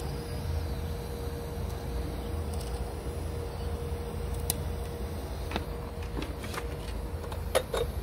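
TIG (argon) welding arc held on a steel gas pipe to lay a tack weld: a steady low hum with a faint steady tone. A few light clicks and knocks come near the end as the tack is finished.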